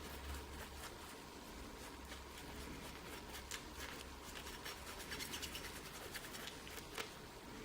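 Faint scattered clicks and scrapes of small greased metal parts being handled and worked on at a bench, over a steady low hum.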